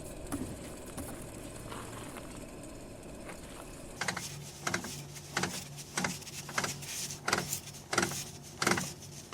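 Damaged differential turning as a raised wheel is rotated by hand, a sign of a damaged internal part. There is a steady rumble, then from about four seconds in a rapid, uneven run of clicks and knocks over a low hum.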